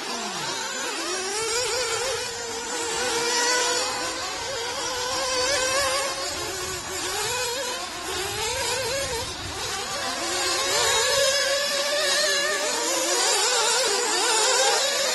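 Several nitro-powered 1/8th-scale off-road buggy engines buzzing at high revs, their pitch rising and falling as the buggies accelerate and back off around the track.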